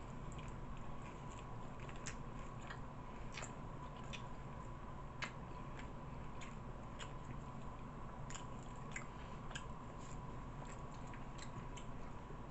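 A person chewing a cheesesteak sandwich close to the microphone: soft wet mouth sounds and faint crunches of toasted bread, with scattered small clicks, over a low steady hum.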